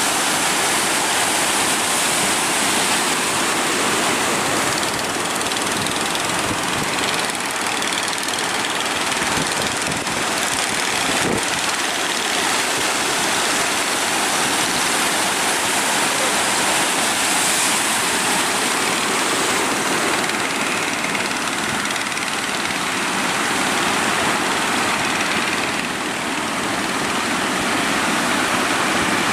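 Large ocean waves breaking in a steady, continuous roar of surf.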